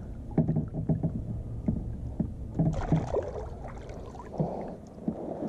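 Water splashing and knocks against a plastic kayak hull as a largemouth bass is landed by hand, with a louder splash about three seconds in.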